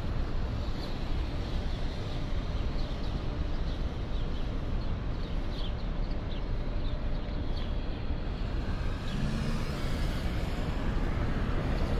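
Downtown street traffic noise: a steady low rumble of passing vehicles, with faint short high chirps through the first part. The traffic grows louder and brighter from about nine seconds in, as if a vehicle passes closer.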